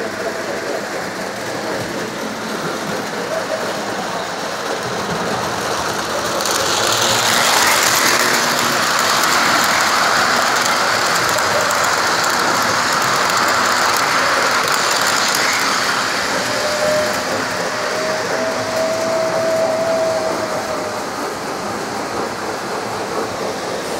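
O-gauge model train running on its track: wheels and motor running steadily, growing louder as the train passes close about six seconds in and fading again after about twenty seconds. A short held tone sounds about seventeen seconds in.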